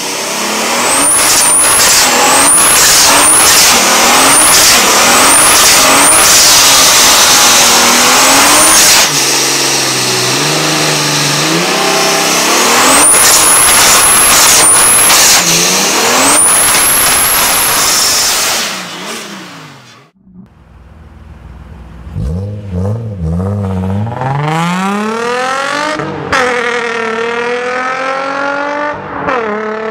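Tuned performance-car engines from several clips in turn: loud revving exhaust with repeated short, rising high whistles and chirps. After a brief fade, one car accelerates hard, its engine pitch climbing, dropping once at a gear change, then climbing again.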